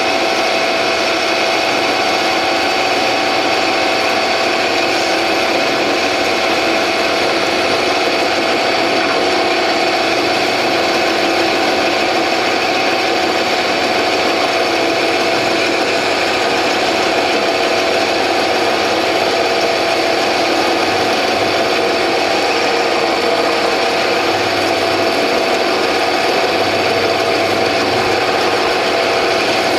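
Bernardo P 600 G metal lathe running while a parting-off blade in a rear toolpost cuts into a spinning stainless steel bar: a steady machining noise with the motor's hum and a few constant whining tones. The cut runs fast and quiet, without squealing or chatter.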